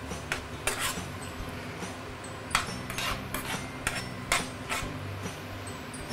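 Metal spoon scraping and clinking against a stainless steel frying pan as anchovies are stirred, with about nine irregular clinks over the steady sizzle of deep-frying oil. The bubbling comes from water being driven out of the freshly washed anchovies.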